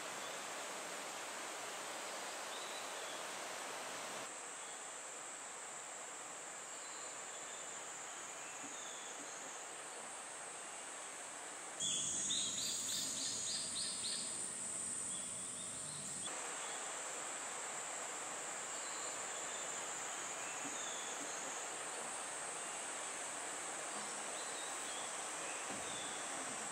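Summer forest ambience: a steady high-pitched insect hum with faint scattered bird chirps. About twelve seconds in, a louder run of rapid repeated chirping lasts for a few seconds.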